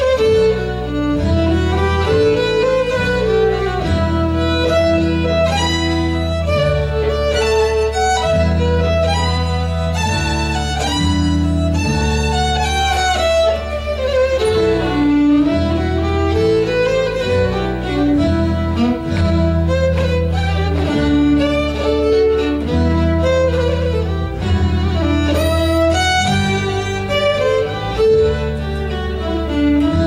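Fiddle playing a fast Celtic tune, the melody moving in quick notes over steady, sustained low accompaniment.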